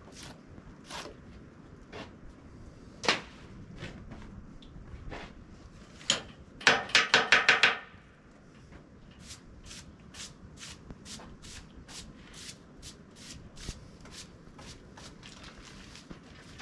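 A hand brush scrubbing dirt off the surface of an old log, short scraping strokes coming a couple of times a second in the second half. Around the middle comes a quick rattle of about six sharp clicks, the loudest sound here.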